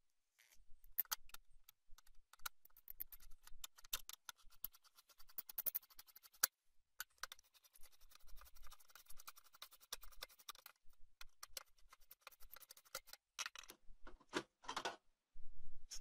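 Faint, rapid clicking and ticking of a screwdriver turning out the spring-loaded screws of a PC's CPU heatsink, metal on metal, with a few louder scrapes near the end.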